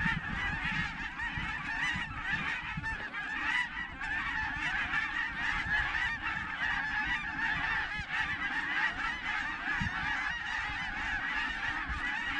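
A large flock of wild geese calling overhead: a constant chorus of many overlapping honks and cackles that never lets up.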